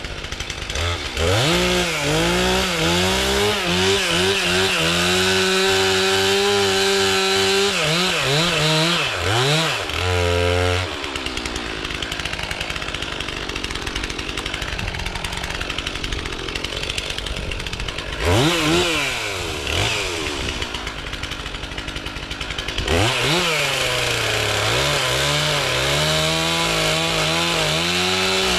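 Two-stroke chainsaw revving up and down several times, then cutting into a fallen log. The engine note drops and turns rough under load for several seconds, then it revs back up and runs high and steady near the end.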